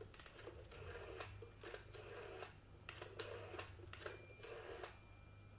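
Telephone dial being turned for a number: a run of short, uneven clicking strokes for about five seconds, with a faint steady tone coming in near the end.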